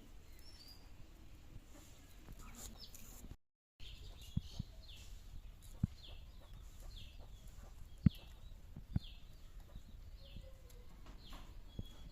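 A bird chirping over and over, short falling chirps about two a second, with a few sharp knocks among them, the loudest about eight seconds in.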